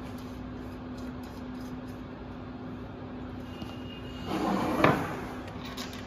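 Metal waveguide components being handled on a wooden bench: a short scrape about four seconds in that ends in one sharp knock, then a few light clicks. A steady low hum runs underneath.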